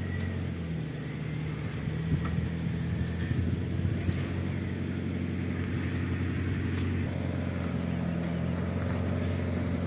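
Motor vehicle engine running steadily, a low, even hum with a few light knocks.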